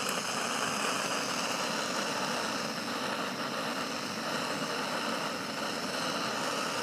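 Backpacking camp stove burner running steadily at full flame, a constant hiss heating a pot of water for coffee.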